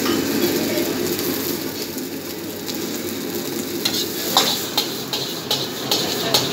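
Fried rice sizzling in a wok over a steadily running gas wok burner while a metal ladle stirs and scrapes it. From about four seconds in come about six sharp clanks of the ladle striking the wok as the rice is tossed.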